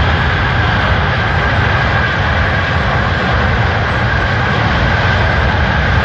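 Aircraft engine noise, loud and steady, with a steady high whine over a deep rumble.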